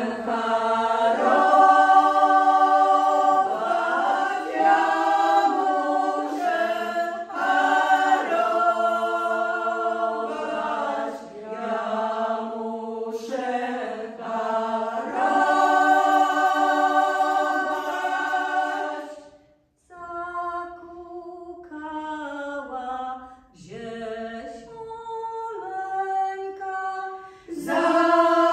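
Women's vocal ensemble singing an old Polish folk song a cappella, several voices in close harmony on long held notes. About twenty seconds in the singing thins out and goes quieter, and the full group comes back in near the end.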